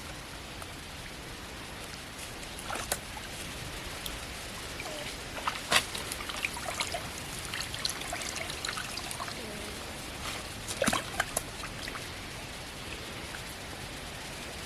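Water trickling and splashing over a steady hiss, with sharp splashes about 3 seconds in, about 6 seconds in and again near 11 seconds.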